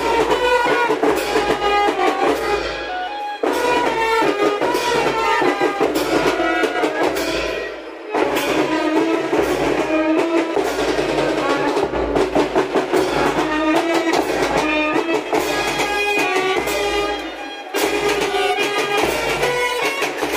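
Brass band playing, trumpets carrying the tune over a steady drum beat. The music breaks off and picks up again abruptly three times.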